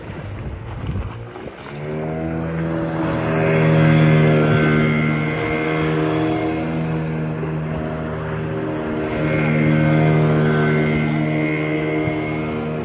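An engine running, dropping briefly then revving up about a second and a half in and holding at high revs, with two swells in loudness.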